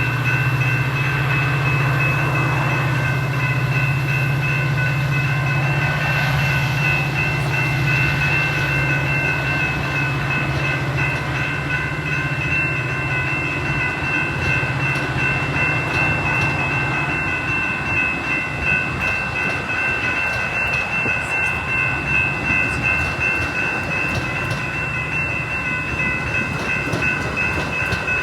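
Metra commuter train on the move: a deep, steady engine drone for the first half gives way to wheels clacking over the rails. Several steady high ringing tones run underneath throughout.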